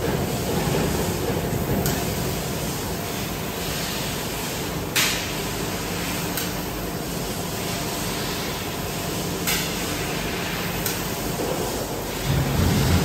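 HSG TL660S heavy-duty tube laser cutter running with a large steel tube clamped in its chucks: a steady machine hum with a hiss over it, broken by a few sharp clicks, the loudest about five seconds in. A louder low rumble sets in near the end.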